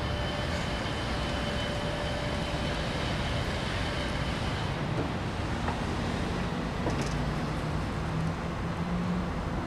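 Steady outdoor traffic rumble, with a faint thin whine from the 12-volt PA-04 electric linear actuator driving the pickup-mounted wheelchair lift arm as it lowers the chair; the whine stops about halfway through.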